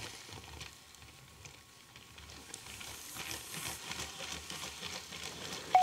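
Faint steady hiss of room noise, dipping lowest about a second and a half in and rising a little toward the end, with no clear mechanical or tonal sound.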